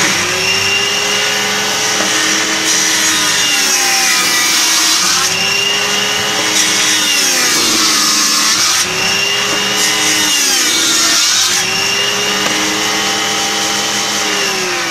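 Maktec circular saw mounted under a homemade wooden table saw, running at full speed. Its pitch sags and recovers several times as thin strips of wood are ripped through the blade.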